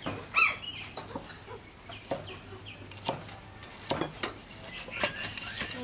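Cleaver chopping fresh red chilies on a wooden chopping board, a few scattered knocks of the blade on the wood. A chicken clucks briefly near the start.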